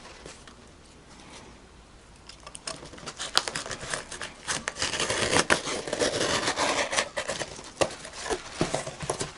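Packing tape being pulled off a cardboard shipping box and the box being opened, with tearing and rustling among sharp clicks. It is quiet for the first two seconds or so and busiest in the second half.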